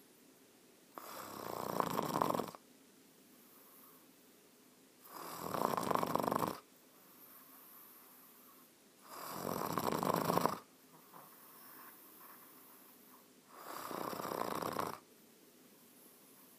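A sleeping person snoring: four long snores about four seconds apart, each growing louder over about a second and a half, with faint breathing between them.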